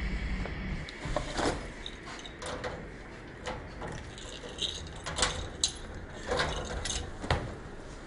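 A string of irregular sharp clicks and knocks, about a dozen, unevenly spaced.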